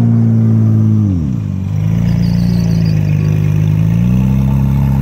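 Off-road race buggy's engine running, its pitch dropping a little over a second in, holding lower, then rising back up about four seconds in.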